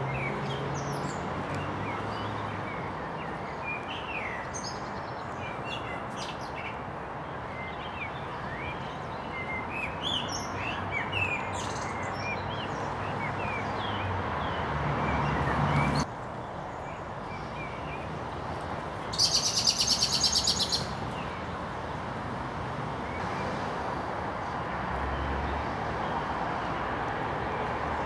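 Small birds chirping and calling over a steady background hiss, with a loud rapid rattle of high notes lasting about two seconds a little past the middle.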